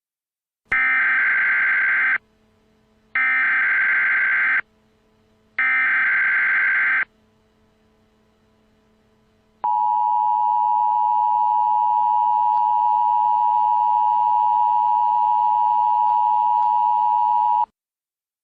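Emergency Alert System tones: three short bursts of SAME header data, each a buzzing digital chirr about a second and a half long, then after a short pause the steady two-tone EAS attention signal held for about eight seconds before cutting off. Together they announce the start of an emergency alert broadcast.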